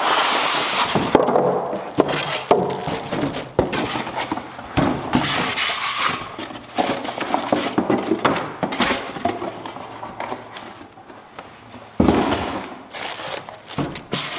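Cardboard box and styrofoam packing being handled and pulled apart, with irregular rustling, scraping and crackling and a few sharp knocks. There is a louder burst of crackling near the end.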